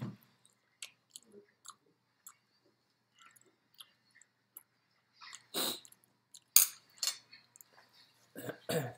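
A person chewing food close to the microphone, with scattered small clicks of metal chopsticks on a plate. There are a few louder sudden sounds about halfway through and again near the end.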